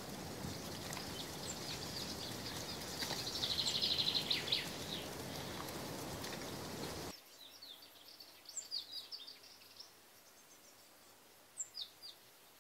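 Outdoor countryside ambience: a steady hiss with a fast, high trill about three to four seconds in, cutting off abruptly about seven seconds in to a much quieter background with scattered high bird chirps.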